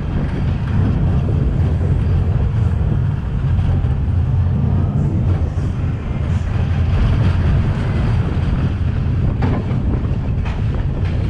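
Small kiddie roller coaster train running round its track, heard from on board: a steady low rumble of the wheels on the rails, with a couple of sharper clacks near the end.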